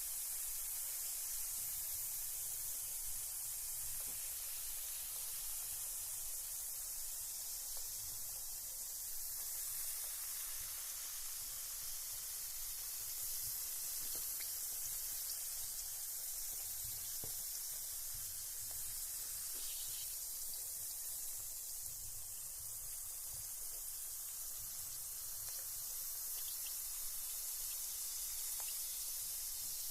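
Carbonated bath bomb fizzing in bath water: a steady high hiss of effervescence with a few faint scattered ticks.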